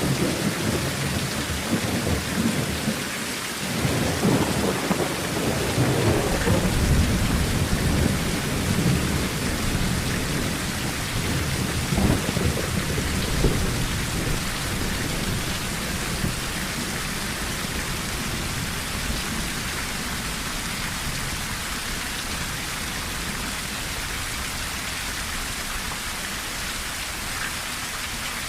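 Heavy rain falling on a tin roof, with a low thunder rumble that peaks in a couple of sharp cracks a little before halfway and then dies away, leaving only the steady rain.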